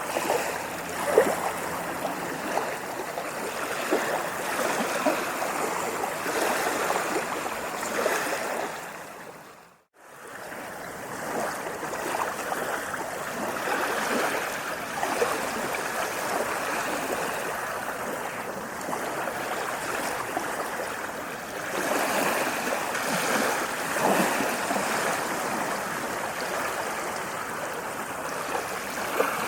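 Water rushing and splashing steadily, with many small splashes and a few swells in loudness. About ten seconds in it fades out to silence and fades back in, as at an edit in the recording.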